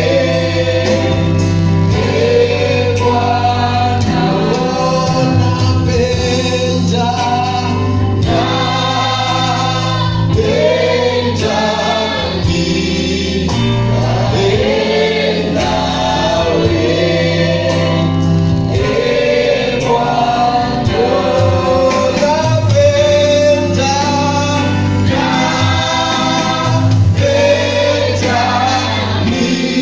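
Gospel worship song sung by a youth group: a male lead voice with a mixed group of singers, all amplified through microphones, over an instrumental backing with sustained bass notes and a steady beat.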